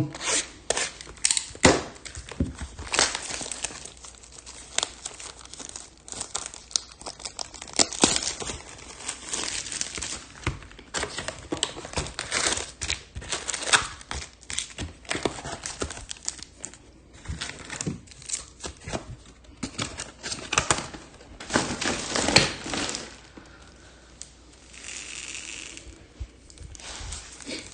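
Plastic and foil wrapping on a baseball card hobby box and its packs being torn open and crinkled: irregular crackles and rustles, quieter for a few seconds near the end.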